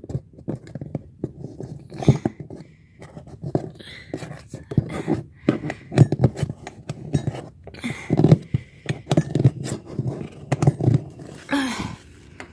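Irregular clicking, knocking and scraping of a tool being worked inside a broken door knob's latch hole to fish out a dropped part, with a short vocal sound near the end.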